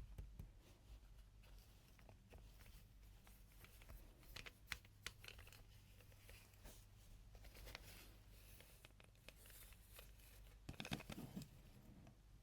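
Faint sounds of toy packaging being handled: scattered small clicks and taps with light rustling, and a louder burst of handling near the end.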